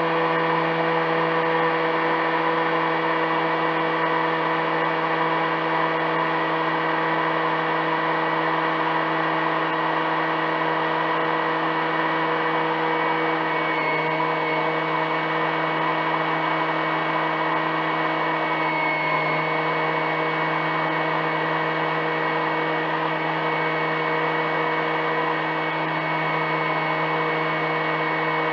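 Motor of an RC jetfoil model running at a constant speed, heard from the onboard camera: a steady whine made of several even tones over a rushing hiss, with no change in pitch.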